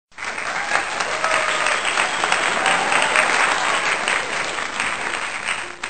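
Crowd applause, a recorded sound effect, starting suddenly just after the start and running on steadily.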